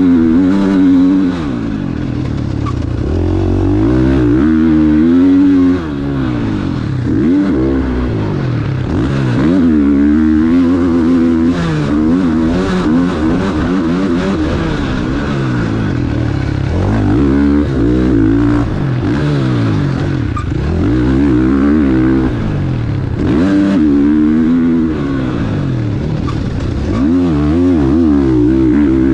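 KTM 450 SX-F four-stroke single-cylinder motocross bike being ridden hard, its engine revving up and dropping back again and again as the throttle is worked through the gears and corners.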